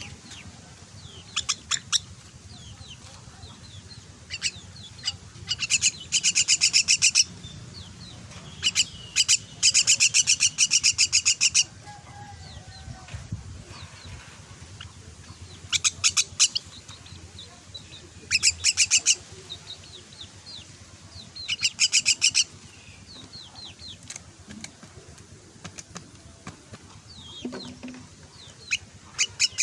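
Young myna begging calls: a series of loud, rapid rattling bursts, each lasting about a second or two, repeated several times, with faint chirps between them.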